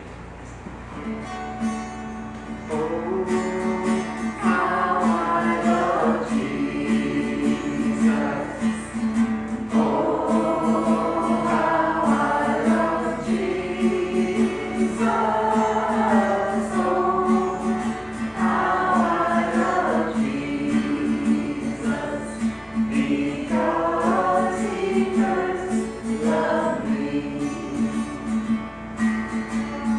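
Group of voices singing a gospel worship song with instrumental accompaniment over a steady held low note. The singing starts about three seconds in and goes in phrases with short breaths between them.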